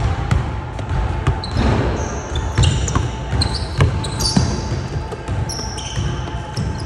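Basketball dribbled on a hardwood gym floor, a string of bounces, mixed with sharp high sneaker squeaks as players cut and drive.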